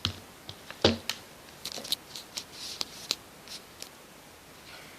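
Hands handling small plastic toy pieces and their box: two sharp clicks in the first second, then lighter scattered clicks and rustling that die away near the end.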